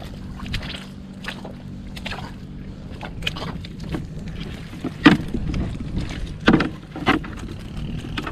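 A small motor drones steadily and low, with water sloshing, fading somewhat partway through. A few sharp impacts cut across it, the loudest about five seconds in and two more between six and seven seconds.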